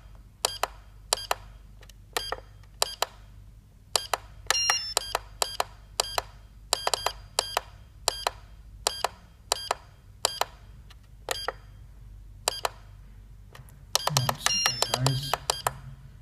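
Avionic RCB OS-10 radio-control transmitter's key beeps: a short electronic beep for each button press while scrolling through its menus, at about two a second, with quick runs of several beeps about four seconds in and near the end.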